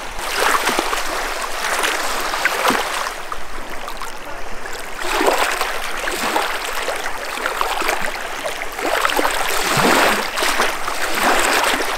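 Lake water splashing and lapping at the shore, coming and going in about three washes.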